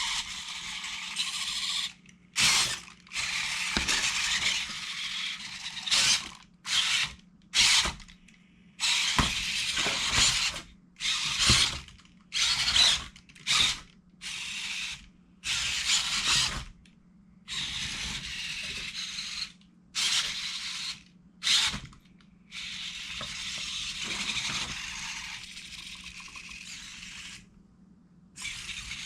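Servo motors of a Robosen Optimus Prime robot toy whirring in short stop-start bursts, some brief and some lasting a few seconds, as the robot moves its joints.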